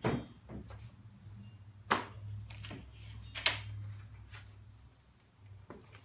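Wood-framed fiberboard panels being handled and set down on a concrete floor: a series of knocks and short scrapes, the loudest about two and three and a half seconds in, over a low steady hum.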